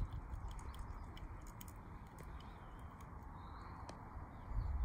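Wind buffeting the microphone in a fresh breeze, an uneven low rumble over a faint steady hiss, with a gust swelling louder near the end.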